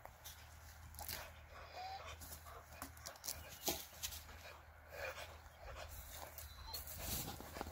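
A short-handled digging tool scrapes and chops at dry soil in irregular strokes, while a dog whimpers now and then in brief thin whines.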